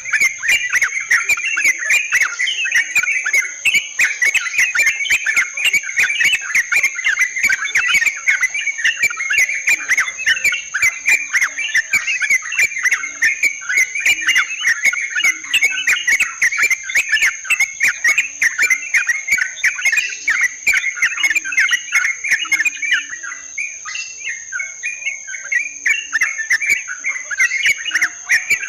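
A flock of yellow-vented bulbuls chattering and calling continuously in dense overlapping phrases, used as a trapping lure. The calls thin out briefly about three-quarters through. A steady high whine runs underneath.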